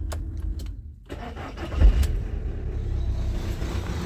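Volkswagen T5's 2.0 TDI CAAA four-cylinder common-rail diesel starting about a second in, loudest as it catches, then settling into a steady idle.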